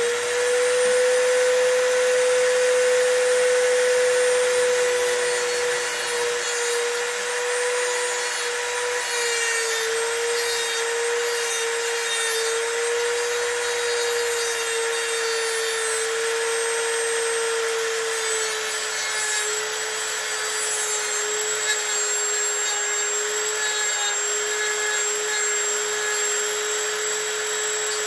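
Dremel rotary tool with a cutoff wheel grinding the bitting into a Schlage SC4 key blank: a steady high motor whine with a grinding hiss over it. The pitch sags slightly a few times as the wheel bears into the metal.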